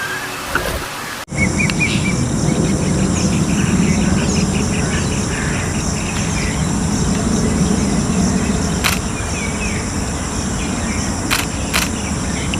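Birds calling, with short chirps and a rapid trill, over a steady insect drone and a low rumble. A sudden cut about a second in switches to this recording, and a few sharp clicks come near the end.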